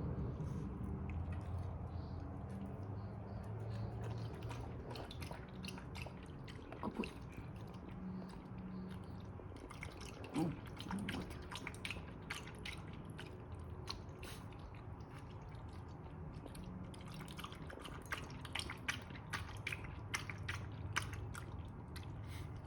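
A dog lapping water from a bowl: irregular wet clicks and slurps, busiest near the middle and toward the end, over a low steady hum.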